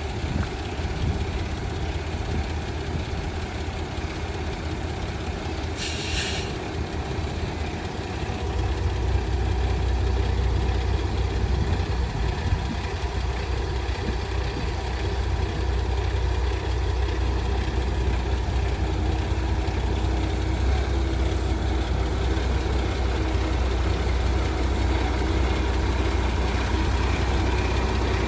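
Peterbilt 389 tractor's heavy diesel engine idling steadily, getting louder about eight seconds in, with a brief hiss about six seconds in.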